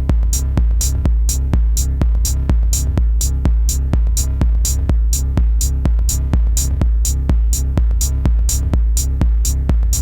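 Electronic music played live on hardware: a drum-machine beat with a deep, pulsing bass line and bright hi-hats about two a second.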